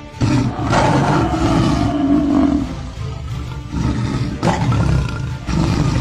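Several loud, rough animal roars and growls in bursts, over background music.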